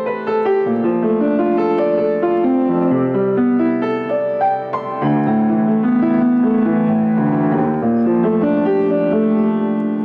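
Piano music: a run of chords and melody notes, played steadily with no break.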